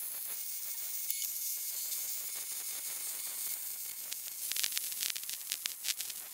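Arc welding a steel pipe leg to a steel base plate: a steady hiss, cut off for a moment about a second in, then a sputtering crackle over the last couple of seconds.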